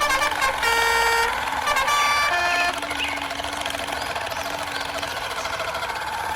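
Radio-controlled model truck's sound module playing a diesel engine sound, with two short pitched tones in the first three seconds.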